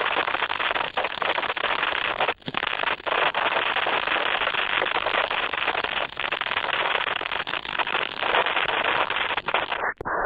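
A dense, continuous crackle of many small pops over a hiss, from a sound-effect clip; about ten seconds in it turns muffled and dies away.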